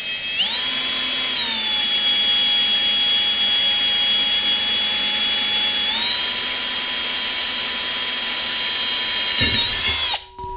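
Cordless drill driving a quarter-inch twist bit through a metal pottery-wheel head, opening a pilot hole out to full size. A steady motor whine that rises in pitch just after the start, drops a little over a second later, rises again about six seconds in, and stops suddenly near the end.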